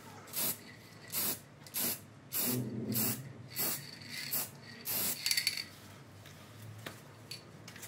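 Aerosol spray-paint can sprayed in short hissing bursts, roughly one every half second to second, stopping about five and a half seconds in, as blue paint goes on in another light coat.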